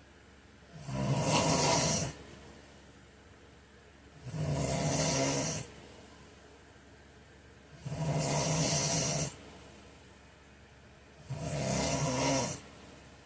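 A man snoring in his sleep: four snores, one about every three and a half seconds, each lasting about a second and a half, with quiet between them.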